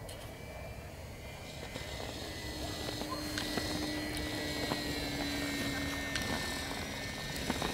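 Small radio-controlled FPV model plane's motor and propeller whining as it flies past, growing louder about two seconds in and dipping slightly in pitch as it moves away.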